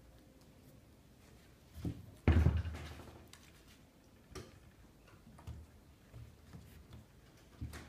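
Scattered knocks and scrapes of hand plasterwork: one loud thump about two seconds in, then lighter taps and scraping as a wooden running mould with a zinc profile is worked around wet plaster for a fibrous plaster cornice.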